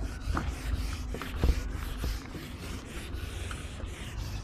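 A handheld duster wiping marker off a whiteboard in rapid, repeated rubbing strokes, with a dull knock about a second and a half in.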